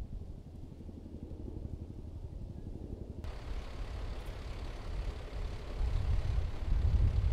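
Fire engine's diesel engine idling, a low steady rumble that grows louder, loudest near the end. A wider hiss comes in suddenly about three seconds in.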